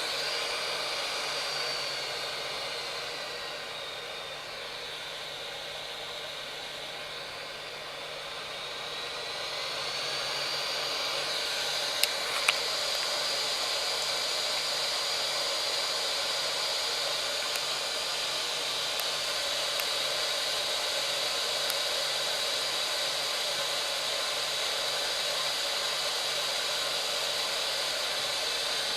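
Hot-air rework gun of a soldering station blowing steadily, its fan whine sinking in pitch and level for several seconds and then rising back to full speed. Two sharp clicks about twelve seconds in.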